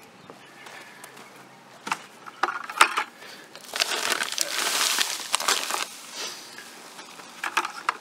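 A bag of play sand being picked up and handled with crinkling and rustling, then sand pouring from the bag's spout onto the ground in a steady hiss for about two seconds. A few more rustles near the end as the bag is set down.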